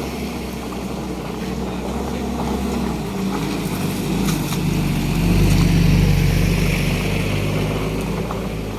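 A heavy truck's diesel engine runs with a steady low drone. Its note shifts about three seconds in, and it grows louder toward the middle before easing off slightly.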